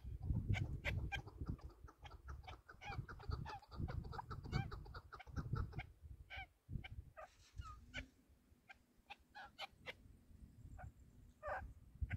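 A caged decoy chukar partridge calling: a quick series of short clucking notes, thick for the first six seconds, sparser after that, with another flurry near the end. Wind rumbles low on the microphone.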